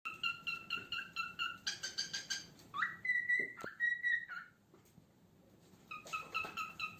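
Cockatiel whistling: quick runs of short repeated notes, a longer whistle in the middle that rises and then holds one pitch, a short pause, then more quick notes near the end.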